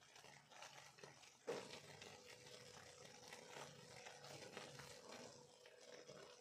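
Faint scraping of a silicone spatula stirring boiling sugar syrup in a nonstick pan, in repeated strokes, with a soft knock about a second and a half in.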